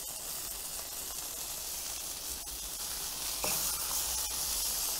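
Beef patties sizzling steadily on a hot cast-iron plancha as they sear to a crust, a little louder from about three and a half seconds in.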